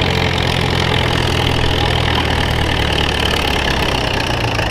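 Farmall tractor's engine working steadily under load as it drags a pulling sled at low speed, a constant low engine note.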